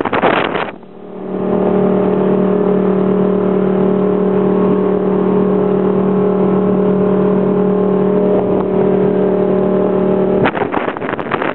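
Wind buffeting the microphone for about the first second, then, out of the wind behind the windshield, the Marada 2100 MVB's engine running at speed as a steady, even drone. The wind buffeting comes back near the end.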